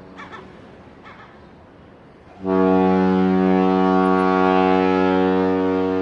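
Boat horn sounding one long, steady, deep blast that starts about two and a half seconds in, after the fading tail of an earlier blast.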